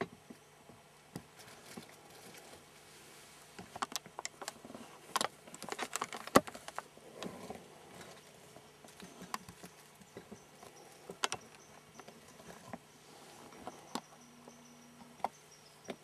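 Scattered clicks, taps and rustles of a camera being handled and moved about, loudest and thickest in the middle, over a steady low hum.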